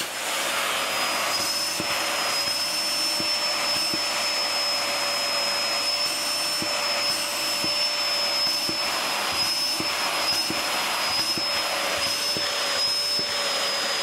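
Hoover Telios Amigo 1800W bagless cyclonic canister vacuum cleaner running steadily, its motor and airflow noise carrying a high steady whine, with a few faint ticks.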